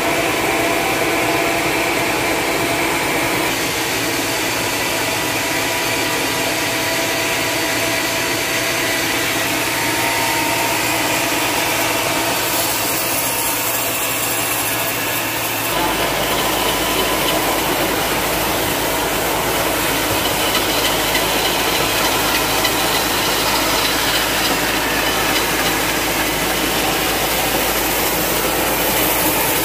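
Engine-driven log sawmill running steadily: the engine's hum is mixed with the hiss of the saw blade cutting hard, dry timber. A little past halfway the sound changes suddenly and takes on a deeper rumble.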